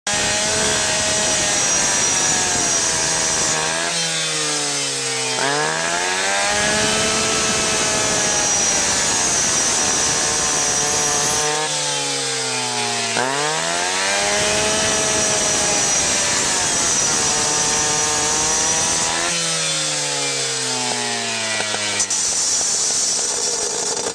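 A Cutters Edge gas-powered rescue saw with a carbide-tipped Bullet Blade is cutting through a car's steel door pillar. Its two-stroke engine runs at high revs, and its pitch sags and then climbs sharply back three times over a steady high cutting whine.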